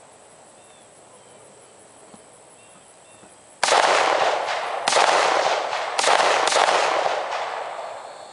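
Four single gunshots in the second half, spaced about a second apart with the last two closer together, each trailing a long echo that dies away.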